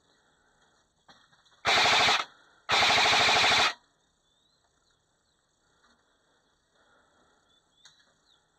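Airsoft electric rifle firing two full-auto bursts: a short half-second burst, then a longer burst of about a second, each a rapid run of shots that stops abruptly.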